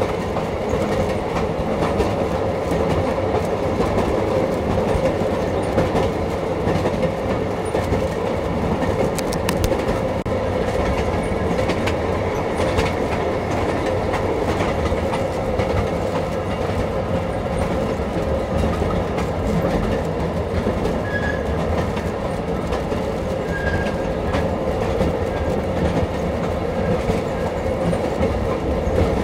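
Passenger train in motion, heard from its open-sided car: a steady rumble and rattle of the car's wheels rolling along the track.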